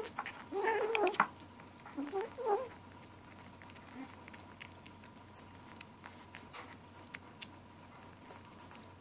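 Seven-week-old kitten making growly little mews while eating wet food from a can, two calls in the first three seconds. After that come only faint clicks of eating.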